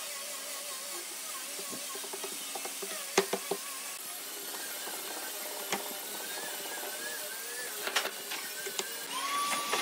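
A few sharp knocks and clicks of wood and a metal F-clamp as a seat board is set on a wooden frame and clamped, the loudest about three seconds in, over a steady hiss.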